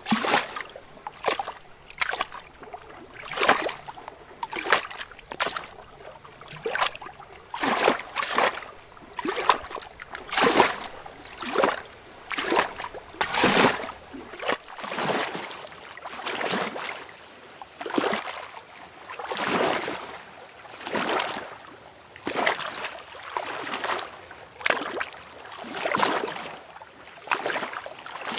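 Lake water lapping in a steady run of small splashes, about one a second, slower and more even in the second half.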